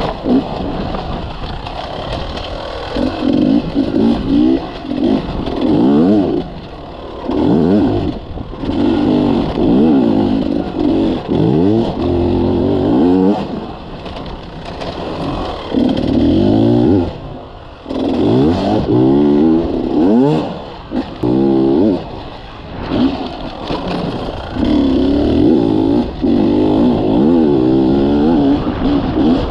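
Beta Xtrainer two-stroke enduro motorcycle engine under hard riding, its pitch climbing and falling again and again as the throttle is opened and shut, with a few brief dips where it drops off.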